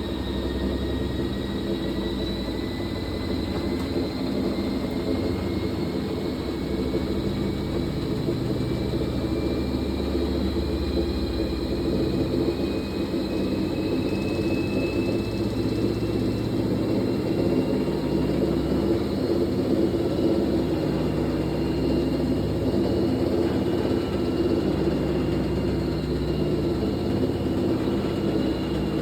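Fisher & Paykel MW059NZ top-loading washing machine spinning a load of towels, its motor whine rising slowly and steadily in pitch as the drum gathers speed.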